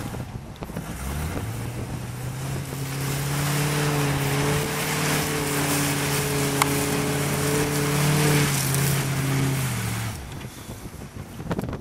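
A mud-bogging truck's engine revving hard. The revs climb about a second in, are held high for about eight seconds, then drop off near the end, with a broad rushing noise over the engine throughout.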